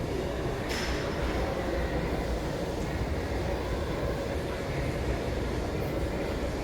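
Steady low rumble of a moving vehicle, with a short hiss a little under a second in.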